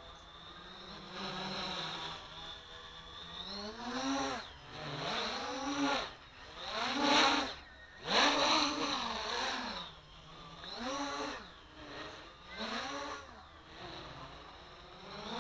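XK X350 quadcopter flying overhead: its motors and propellers buzz, the pitch and loudness rising and falling in about half a dozen swells as the throttle changes, loudest around the middle.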